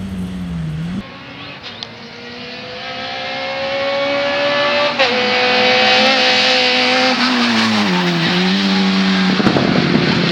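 VW Golf Mk1 rally car's engine at full throttle under race conditions, its pitch climbing for a few seconds, stepping at a gear change about five seconds in, then dropping as the car slows. A short rough burst of tyre noise comes near the end.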